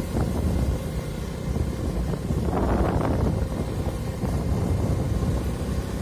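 Low, steady engine rumble of a vehicle moving slowly, with wind rushing over the microphone.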